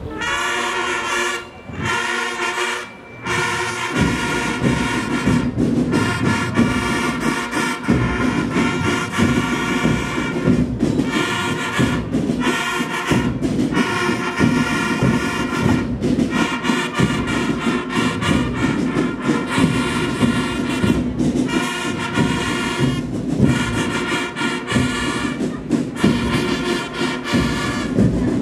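Military brass band playing honours music. It opens with short brass chords broken by two brief pauses, then runs into a continuous piece with drums about four seconds in.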